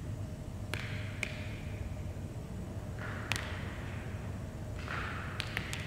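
Drops of liquid falling onto a wet sheet on the floor, each landing as a sharp tap with a short splash, about six at irregular intervals, three of them close together near the end. A low steady hum runs underneath.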